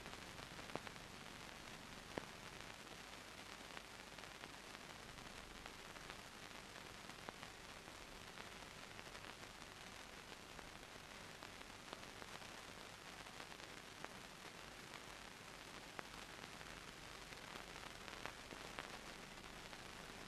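Near silence: the steady hiss of an old film soundtrack, with a few faint clicks.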